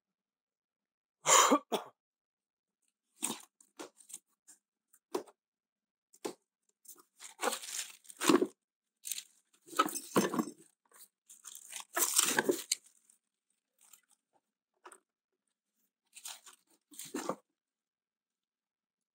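Irregular clunks, knocks and crinkling rustles of a new brake disc being fetched and unwrapped from its packaging, in short separate bursts with the loudest about a second in and around the middle.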